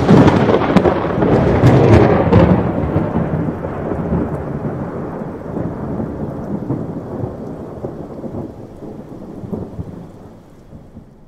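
Close thunderclap: a sharp, loud crack with several splitting cracks over the first couple of seconds, then a long rumble that slowly dies away over about ten seconds.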